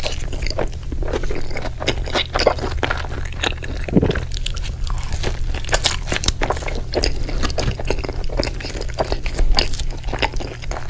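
Burger sandwich being chewed, a dense, irregular run of small crunches and mouth clicks over a steady low hum.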